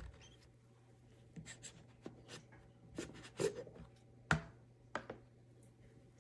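Faint, irregular light clicks and taps of small objects being handled, about eight in all, the sharpest about three and a half and four and a half seconds in, over a steady low hum.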